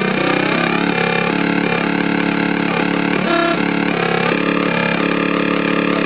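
Joystick-controlled synthesizer playing a buzzy, engine-like tone that glides upward in the first second, then jumps quickly between pitches in a choppy pattern.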